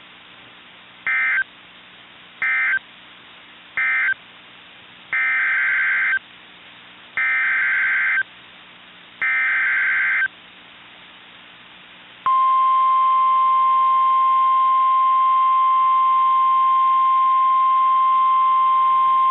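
NOAA Weather Radio Emergency Alert System tones. First come three short bursts of warbling digital data, the end-of-message code closing one warning, then three longer bursts, the header for the next alert. About 12 seconds in, the loud steady 1050 Hz warning alarm tone starts and holds.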